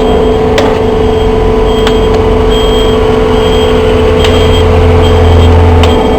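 Semi-automatic baler running with a steady machine hum, punctuated by a few sharp clicks; a deep low drone under the hum cuts off near the end.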